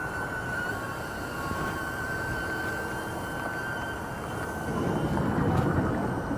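Small camera drone's propellers whining with a steady high hum as it flies nearby. A louder rush of noise swells and fades about five seconds in.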